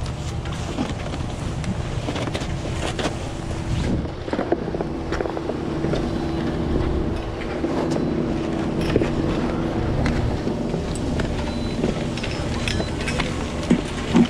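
Snowboard and skis scraping and shuffling over packed snow toward a chairlift, over a steady low hum from the lift machinery, with scattered clicks and knocks from poles and bindings. Near the end there is a sharper knock as the chairlift seat swings in.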